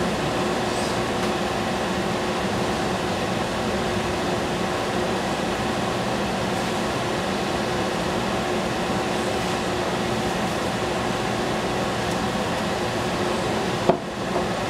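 Kitchen range hood fan running steadily: a whirring hum with a constant tone. A single sharp click near the end.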